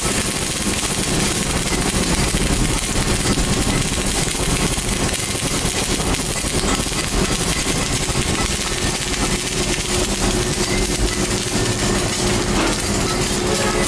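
MIG welding arc crackling steadily as the wire feeds into the weld, a dense, even frying sound.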